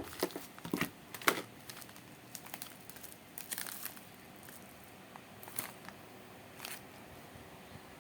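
Packaging being handled and crinkled in irregular bursts. The sharpest crackles come in the first second and a half, then fewer ones.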